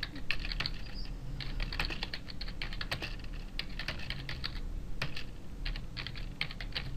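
Typing on a computer keyboard: a quick, irregular run of keystrokes with short pauses.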